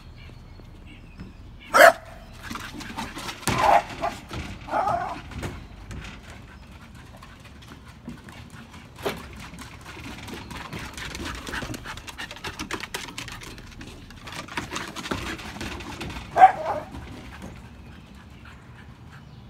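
Scottish terrier giving a few short barks, near the start, a couple more a few seconds in, and the loudest near the end. Between them come quick clicks and scuffs of paws and a ball on a wooden deck during a game of fetch.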